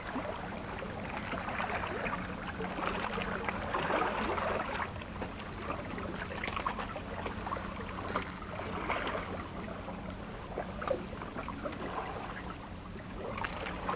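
Sea water lapping and washing against breakwater boulders in soft swells every few seconds, with scattered small clicks and a faint steady low hum underneath.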